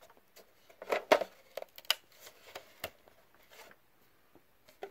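Irregular clicks and knocks from the salt spreader's chute being handled and closed, the loudest cluster about a second in.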